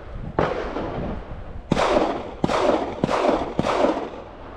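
Five gunshots from shooters elsewhere on the range, irregularly spaced over about three seconds, each trailing off in a short echo.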